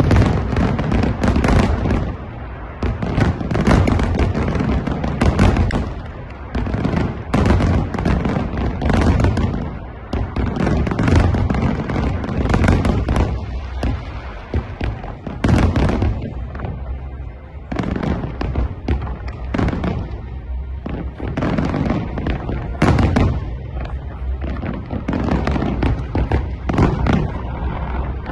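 Fireworks going off in a dense, irregular barrage of bangs, several a second, with a few brief lulls.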